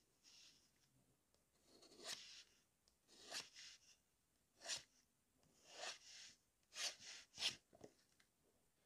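TWSBI fountain pen nib scratching across paper in about seven quick, separate strokes, roughly a second apart, as lines are inked onto a watercolour painting.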